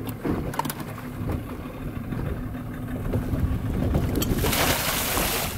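Small boat's outboard motor idling steadily, with a few knocks of the wooden fish-pot frame early on. About four and a half seconds in comes a loud one-second splash as the baited wire fish pot is tipped over the side into the sea.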